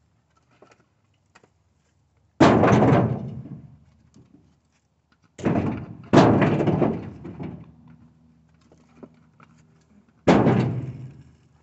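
Four heavy thuds of firewood logs thrown into a pickup truck's bed, one about two seconds in, a close pair around the middle and one near the end, each dying away over about a second.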